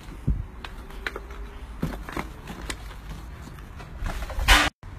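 Footsteps with scattered small clicks and knocks, as someone moves slowly over a rubble-strewn floor. A brief, louder rustle comes near the end and cuts off abruptly.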